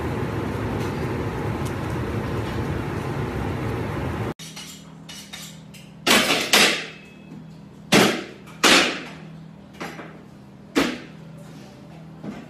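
Steady loud noise, then an abrupt cut to a quieter room where about seven sharp knocks with short ringing tails sound, irregularly spaced about a second apart. The knocks come from a butcher's knife and a raw rack of meat striking a cutting board.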